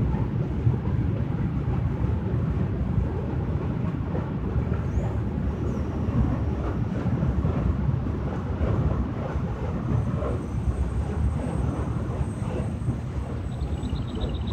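Freight train of open coal wagons rolling past, a steady low rumble of wheels on rail.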